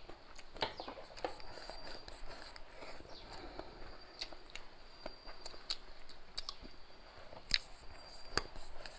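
Close-up eating sounds of braised crucian carp: soft chewing and mouth smacks, with scattered sharp clicks, the loudest two near the end.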